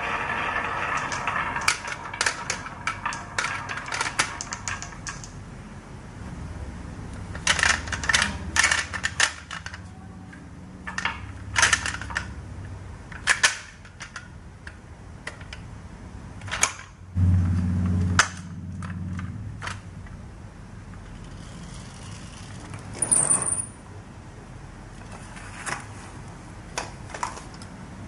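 Marbles clicking and clacking as they roll and knock down a marble run track, sometimes in quick rattling runs of hits. There is a brief low rumble about two-thirds of the way through.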